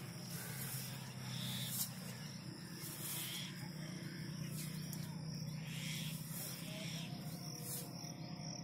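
Faint outdoor field ambience: scattered high chirps, typical of insects or birds, over a steady low hum.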